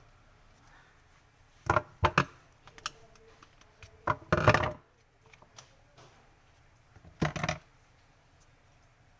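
Parts of a glass-cleaning mop being handled and knocked during a repair: a few short clacks in the first three seconds, a longer, louder clattering rattle about four seconds in, and another clatter near the end.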